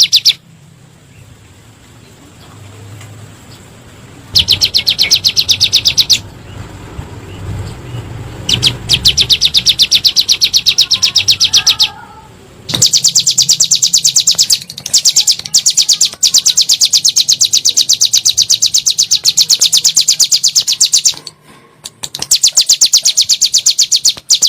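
A ciblek gunung (a prinia) singing its rapid 'nembak' song: fast, evenly repeated high notes run together into a trill. It comes in four long runs with short pauses between them.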